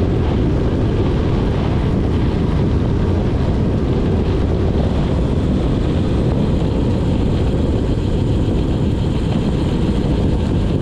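Steady wind rumble buffeting the microphone of a handlebar-mounted action camera during a fast road-bike descent.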